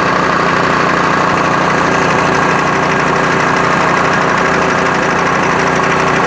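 Bridgeport milling machine running at about 700 RPM, its fly cutter taking a cut across oiled mild-steel parts. A steady, noisy mechanical running sound with a constant hum, made noisy by the machine's cooked (worn-out) variable-speed drive bushing.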